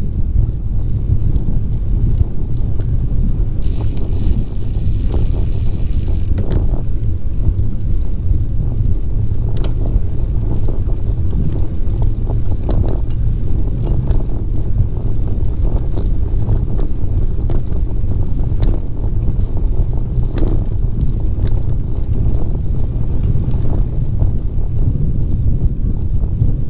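Wind buffeting the microphone of a camera riding along a paved trail by bicycle: a loud, steady low rumble with scattered light knocks and a brief higher hiss about four seconds in.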